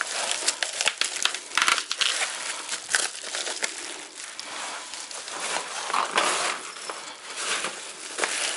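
Aluminium-faced bubble-wrap insulation crinkling and crackling as it is folded and wrapped around a hydration bladder, in a dense run of irregular sharp crackles.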